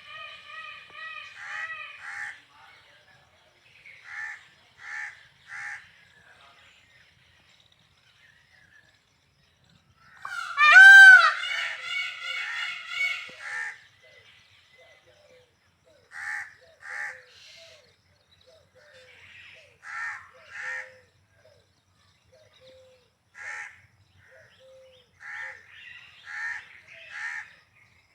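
Peacock (Indian peafowl) calling: short harsh calls in groups of two or three, repeated with pauses, and one loud, longer call about ten seconds in whose pitch rises and falls.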